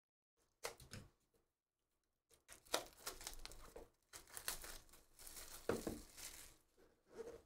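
Plastic shrink wrap being slit and torn off a trading card box, crinkling and rustling. A short burst comes about half a second in, then a longer run of tearing and crinkling from about two and a half seconds in until near the end.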